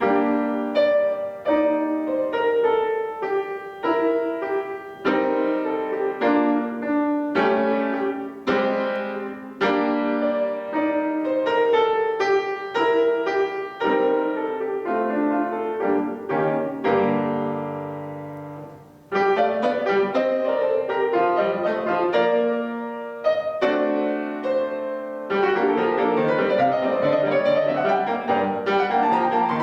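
Solo piano playing a lively dance-like children's piece, starting at once with crisp repeated chords and melody notes. Just past the middle, a held lower chord dies away, then the playing picks up again.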